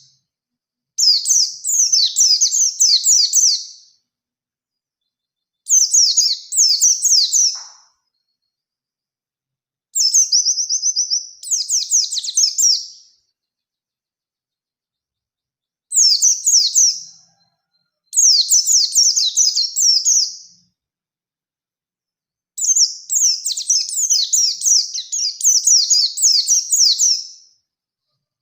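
White-eye (pleci) singing in repeated bursts of rapid, high, falling notes, each phrase lasting two to five seconds with silent pauses between. One phrase, about ten seconds in, opens with a short held whistle before the fast notes.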